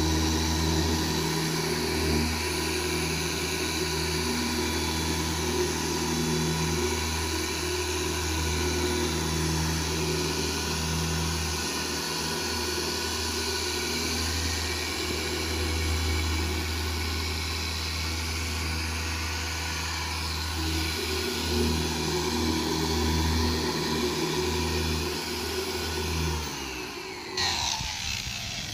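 Dual-action car polisher running with a foam pad on car paint under light pressure, a fairly steady motor hum that stops near the end.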